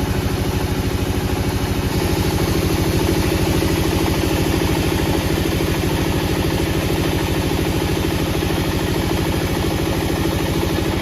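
An engine running steadily with an even, fast throbbing pulse, slightly brighter after about two seconds.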